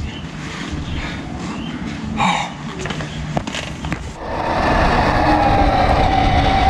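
Rustling and a few knocks of gear being handled. About four seconds in, a small electric motorbike takes over, riding along steadily: a steady motor whine over wind and road noise.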